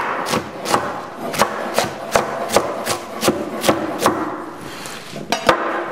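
Chef's knife chopping a leek into coarse pieces on a wooden cutting board, the blade knocking the board in a steady rhythm of about three cuts a second. About four seconds in the chopping pauses, then two quick cuts come near the end.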